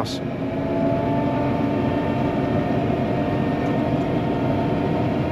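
Steady mechanical drone of a running engine while the ULV mosquito fogger sprays, heard from the vehicle carrying it, with a faint tone that rises slightly about a second in.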